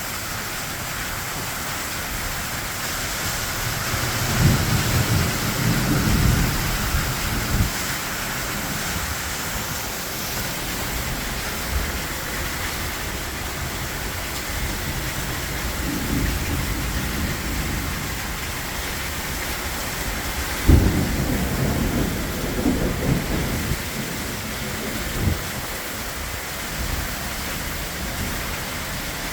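Heavy rain pouring steadily through a severe thunderstorm, with thunder rumbling three times: a long roll a few seconds in, a shorter one midway, and a sharp crack about two-thirds through that rolls on for a few seconds.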